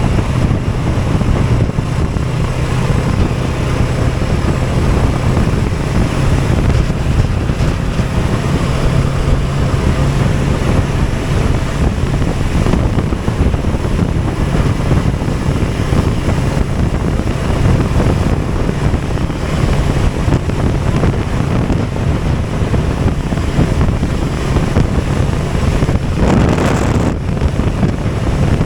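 Vehicle engine running at a steady speed, with heavy wind rushing over the microphone while on the move, and a brief louder gust near the end.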